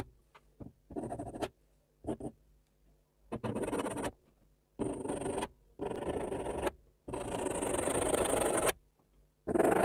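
Graphite pencil shading on toned drawing paper: a run of scratchy strokes, each about half a second to a second long, with short silent pauses between them. One longer stroke of nearly two seconds comes in the second half.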